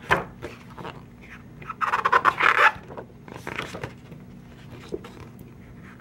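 Pages of a large photo book being turned and handled: paper rustling and sliding, with a louder stretch of rustling about two seconds in.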